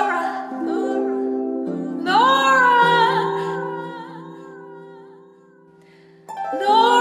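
Dreamy soundtrack music: held, harp-like plucked-string chords under a wordless female voice singing long notes. One sung phrase swells in about two seconds in and another near the end.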